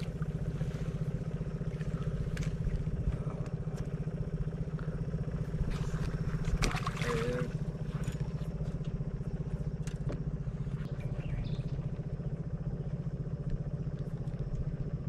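Boat's outboard motor running steadily at an even low pitch, with a few faint knocks and clicks over it.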